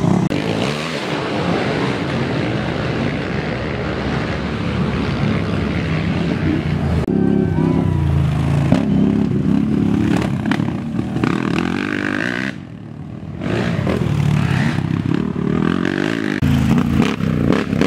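Racing ATV (quad) engines running hard and revving as the quads ride past, changing pitch with the throttle. Partway through the sound drops off briefly before the engines come back.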